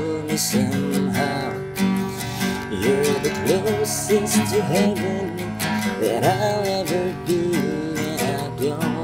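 Acoustic guitar strummed in steady chords, with a man singing along.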